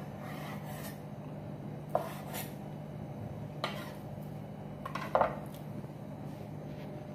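Steel chef's knife scraping along a wooden cutting board while it slices the skin off a fish fillet, with a few sharp knocks of the blade on the board.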